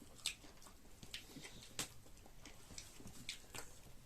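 Chewing and mouth noises while eating chicken: scattered short wet clicks and smacks at irregular spacing.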